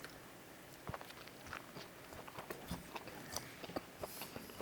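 A person chewing food close to the microphone, making soft, irregular mouth clicks and smacks.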